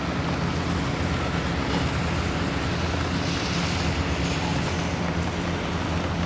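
Steady rush of wind and rain noise on the microphone, over a steady low drone.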